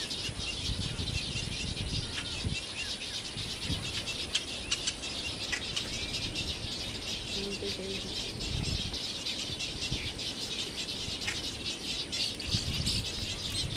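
Steady chatter of many birds in a nesting colony: a dense mass of short, high chirps and ticks, with irregular low rumbles beneath.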